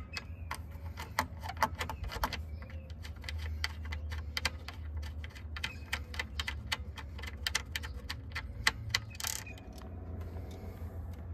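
Small metallic clicks and ticks, irregular and a few a second, from a T-handle hex key being turned by hand in the screws holding a PVC subwoofer port's flange. A steady low hum runs underneath.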